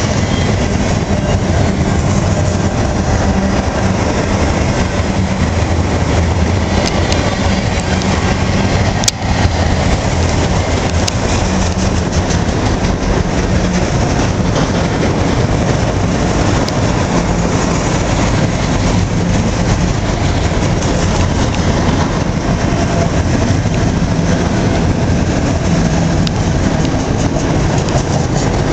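Freight train of autorack cars rolling past close by: a steady, loud rumble and clatter of steel wheels on rail. A single sharp click comes about nine seconds in.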